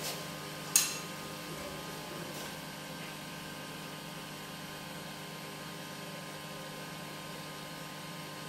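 Steady electric motor hum of a wood lathe running without cutting, with one sharp click about a second in.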